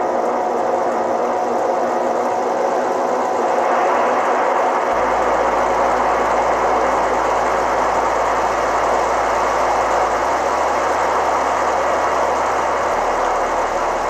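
A GG1 model locomotive's QSI Quantum sound system is playing a steady electric-locomotive running sound through its speaker, a continuous whir with some held tones. It grows a little louder and brighter about four seconds in.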